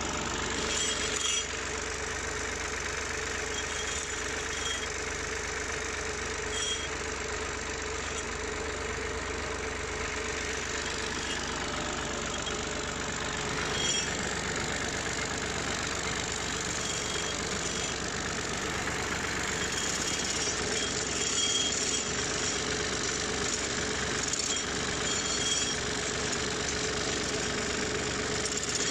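Tractor diesel engine running steadily as the tractor drives, heard from the driver's seat, with one held tone in its hum throughout.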